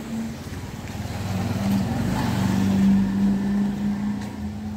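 A motor vehicle's engine passing slowly close by: a steady hum that grows louder, peaks about three seconds in, then fades.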